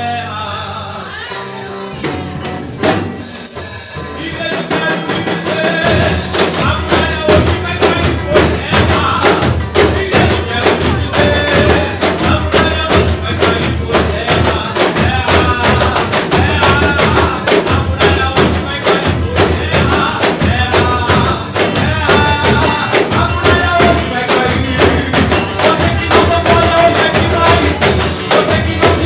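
Worship music played live: many hand tambourines shaken and struck in a fast, steady rhythm over a drum beat, with a man singing through a microphone and PA. The music is thinner for the first few seconds and fills out to full strength about five seconds in.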